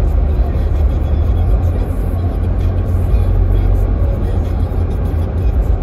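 Steady low road rumble and tyre noise inside a car cabin at highway speed.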